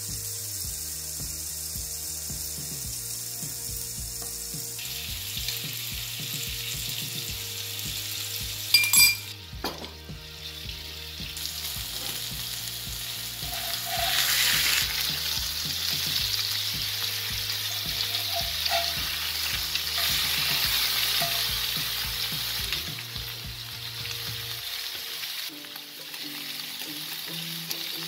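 Pork-and-beef burger patties sizzling as they fry in a cast-iron grill pan. There is one sharp knock about nine seconds in. The sizzle grows louder from about fourteen seconds in, when the patties are turned with a spatula.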